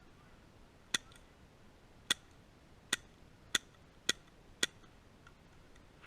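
Airsoft rifle fired six times on semi-auto: sharp clicks that come quicker toward the end.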